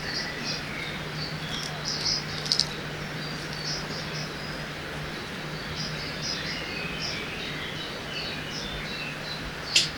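Riverside forest ambience: many short, high chirps of small birds and insects scattered throughout, over a steady rush of flowing water and a faint low hum. A sharp click sounds just before the end.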